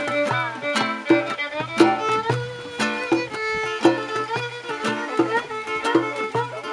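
Instrumental music with a steady beat: a repeating bass line under a bowed-string-like melody.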